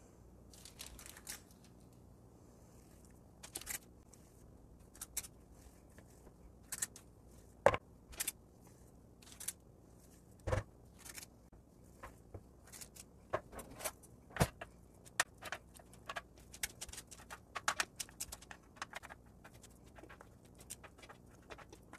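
Scattered light clicks and taps of a spring-loaded ice cream scoop and metal spoons on a paper-lined baking tray as cookie dough is portioned and pressed into shape, with a few sharper knocks among them.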